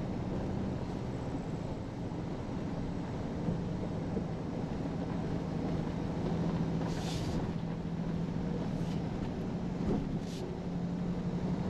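Cab noise of a 2023 Toyota Tundra TRD Pro driving a rutted dirt trail: a steady low drone from its twin-turbo V6 hybrid drivetrain over tyre rumble on the dirt. A few short hisses come through around the middle and later.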